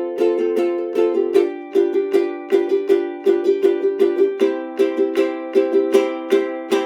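Intro music: a strummed string instrument, likely a ukulele, repeating a chord in an even rhythm of about four strokes a second.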